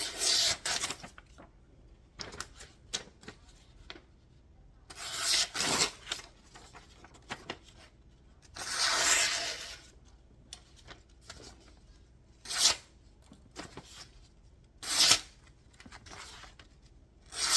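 A sheet of paper being sliced with the freshly sharpened large recurve blade of a Kershaw Camp 10 knife to test its edge: about six separate papery swishes with small rustles and clicks between them, the longest about nine seconds in. The edge cuts the paper smoothly.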